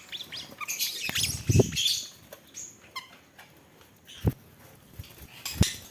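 Pet birds chirping and rustling, with two sharp knocks in the second half.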